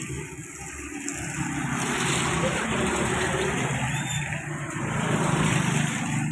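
Passenger train running past: a steady rumble and rush of wheels on the rails over a low engine hum.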